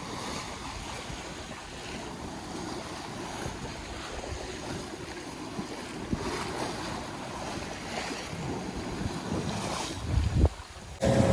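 Waves rushing against the hull of a sailboat under way in rough sea, with wind buffeting the microphone in gusts, strongest about ten seconds in. Right at the end the sound cuts abruptly to a louder, steady hum.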